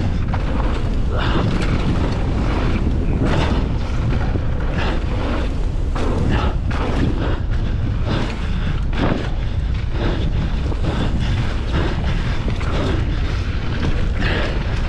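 Wind buffeting the microphone of a mountain bike descending a dirt trail at speed, with repeated clatters and knocks as the bike rattles over the rough ground.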